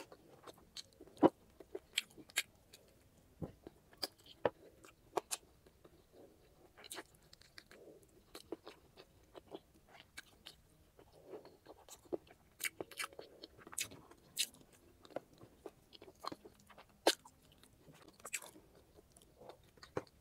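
Close-miked eating of grilled chicken and rice: chewing and biting, with irregular sharp clicks and crunches from the mouth.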